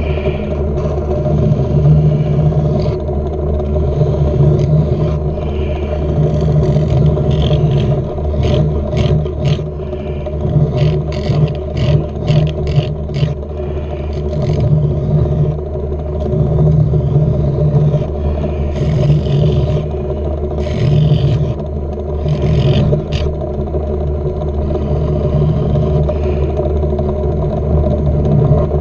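Small metal lathe running steadily, with a hand file scraping against the tiny spinning steel pin to bring it down to size: many quick strokes in the middle, then three longer strokes about twenty seconds in.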